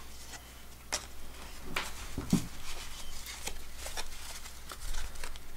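A stack of freshly unwrapped 1988 Fleer baseball cards being handled and squared up in the hands, giving a scatter of sharp clicks and short rustles as the card edges tap and slide together.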